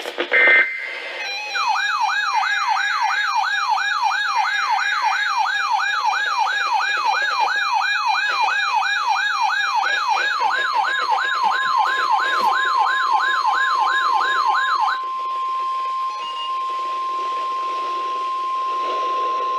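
Emergency Alert System alert on NOAA Weather Radio. A weather alert radio's siren warbles up and down about two and a half times a second and stops abruptly about 15 seconds in. It leaves the steady 1050 Hz NOAA Weather Radio warning alarm tone, which marks the start of a tornado watch announcement.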